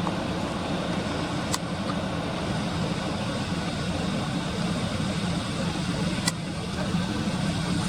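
Steady low rumble of outdoor background noise, with two sharp clicks, about a second and a half in and about six seconds in.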